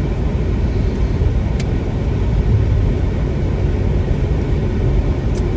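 Steady low road and engine rumble inside a moving car's cabin, with one brief click about a second and a half in.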